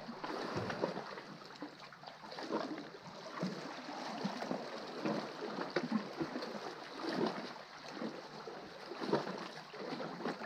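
Small sea waves lapping and gurgling against the rock at the foot of a sea cliff, in uneven little sloshes.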